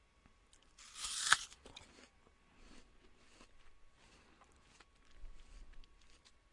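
A bite into a crisp apple: one loud crunch about a second in, then several softer crunching chews.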